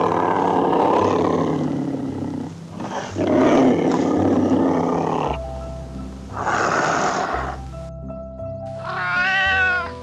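An animal calling: three long, harsh calls of a second or two each, then a shorter clear call near the end that wavers in pitch. Background music plays throughout.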